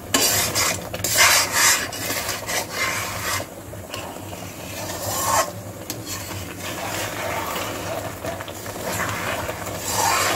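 Flat metal spatula scraping and stirring thickening milk and khoya along the bottom of a metal kadhai in repeated rasping strokes, which keep the mixture from sticking and burning. The strokes are loudest in the first few seconds and softer after a short lull.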